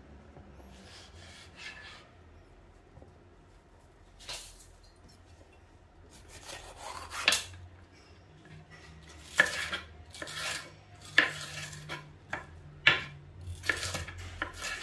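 Knife work on a cutting board while bell peppers are cut: irregular sharp taps and short scrapes, sparse at first and then more frequent and louder in the second half.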